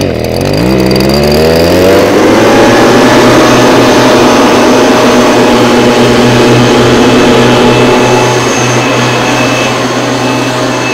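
Stihl SR 200 backpack mist blower's two-stroke engine starting up and revving, its pitch rising over the first two seconds. It then holds a steady high rev with the hiss of the blower's air blast.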